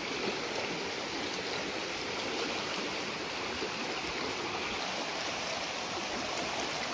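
Muddy floodwater rushing steadily down a swollen stream: a flash flood after heavy rain upstream.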